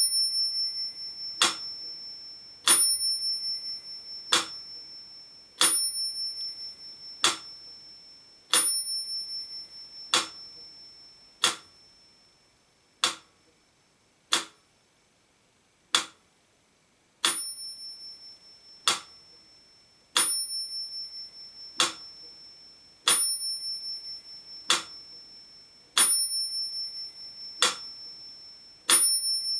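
Mechanical pendulum metronome ticking at 40 beats per minute, with its bell ringing on every second tick to mark two beats to the bar. About midway, the bell is silent for a few ticks.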